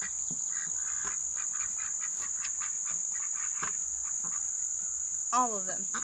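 Steady high-pitched chorus of insects singing without a break, with a few faint ticks scattered through it.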